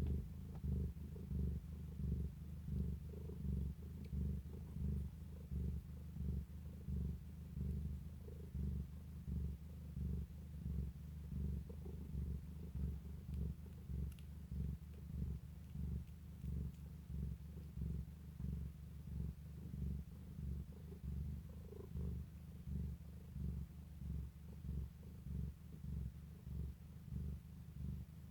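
Cat purring steadily, a deep low purr that swells and fades in an even rhythm, a little more than once a second, with each breath.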